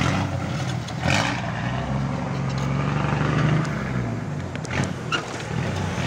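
Large cargo truck's engine pulling away: a steady low engine note that climbs slightly as it accelerates, then eases off after about four seconds. A short hiss comes about a second in.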